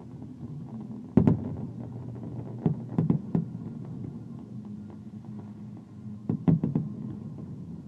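Fireworks shells bursting: a loud sharp bang about a second in, then two quick clusters of several bangs, over a steady low rumble.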